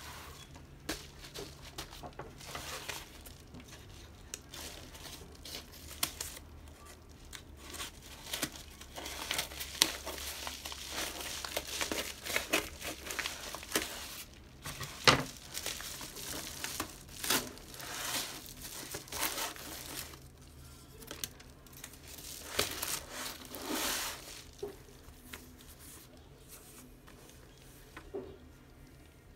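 Padded paper mailer being handled and cut open with scissors: irregular crinkling and rustling of the stiff paper, with a sharp snip of the scissors about fifteen seconds in, the loudest moment.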